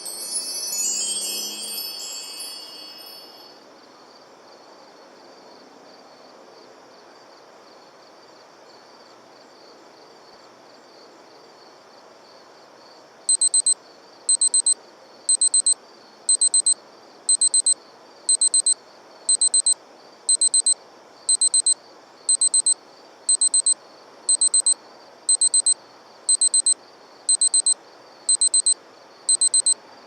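A short chime of several ringing tones that fade over about three seconds, then a faint steady hiss. About thirteen seconds in, a digital alarm clock starts beeping: a quick burst of high beeps about once a second, repeating steadily.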